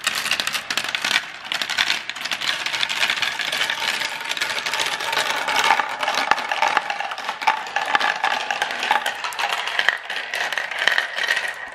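Many glass marbles rolling and clattering down a translucent plastic marble run, a dense, rapid clicking of marble on marble and marble on plastic track.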